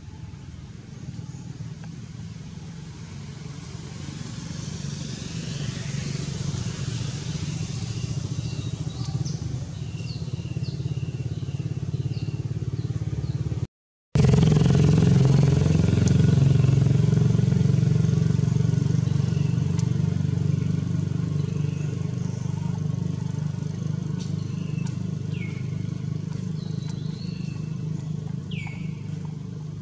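A steady low motor drone that builds over the first several seconds, cuts out for a moment about halfway, then returns at its loudest and slowly fades, with short high bird chirps over it.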